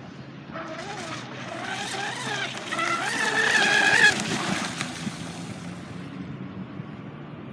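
Radio-controlled electric speedboat running fast, its high brushless-motor whine on a 6S pack rising in pitch and loudness to a peak about four seconds in, then dropping away abruptly to a lower hum.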